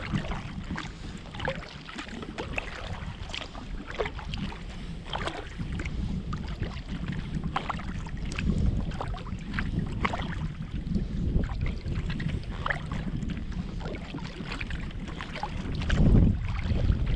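Kayak paddling: the paddle blades dip and splash in river water at an irregular pace, with drips falling between strokes. Under it runs a steady low wind rumble on the microphone, which swells briefly near the end.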